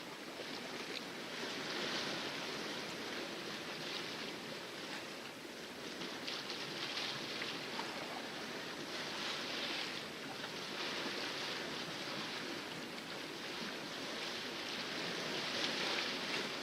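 Water splashing and rushing along the hull of a sailboat under sail in calm seas, a steady wash that swells and eases every few seconds.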